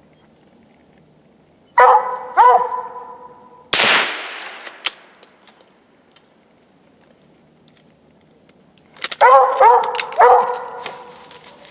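Redbone coonhound barking at the foot of a tree with a raccoon treed in it: two barks, then a group of four or five about nine seconds in. A loud sharp crack with a short decay comes just before four seconds.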